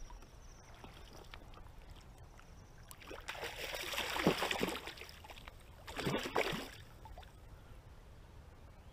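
Water splashing in two bursts, one about three seconds in lasting nearly two seconds and a shorter one about six seconds in, over a low steady river rush.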